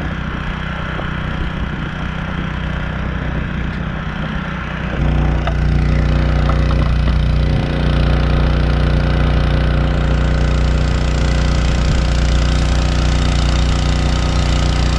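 Small engine of the generator and water-pump rig running steadily under load, pumping water from a tank through a pipe; the engine gets louder about five seconds in.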